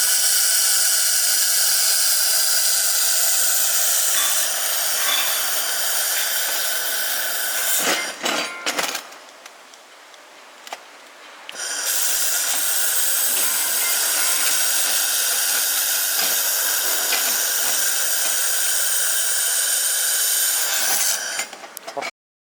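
Laser welding machine running in two long passes: a steady hiss with high whining tones, broken about eight seconds in by a pause of a few seconds with some clicks, then starting again until it cuts off near the end.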